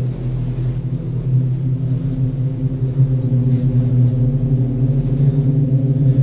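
A steady, loud low drone of several held pitches layered together, typical of the ominous ambient music laid under horror compilation clips.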